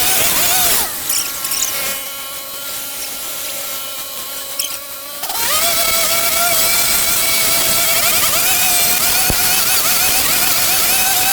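Petrol-engined garden power tool running at high revs. About a second in it drops to a quieter steady idle for roughly four seconds, then revs back up.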